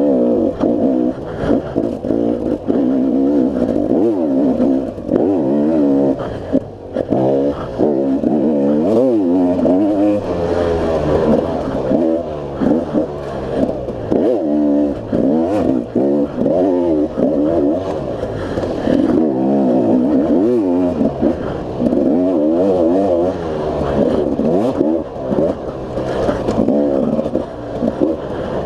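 Two-stroke KTM enduro motorcycle engine revving up and down again and again as the bike is ridden along a bumpy forest single track, with short knocks and rattles over the ground. The throttle closes briefly about six seconds in.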